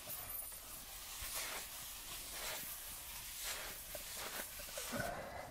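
Paper towel being rubbed across a concrete floor: a soft, irregular scrubbing hiss that swells and fades, with a light knock near the end.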